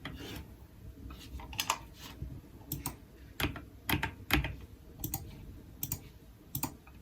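Keystrokes on a heavily foam-modded GMK67 mechanical keyboard with Akko Creamy Yellow v3 Pro linear switches and clone GMK Olivia keycaps. Single keys are pressed one at a time with pauses between them, about a dozen separate strokes.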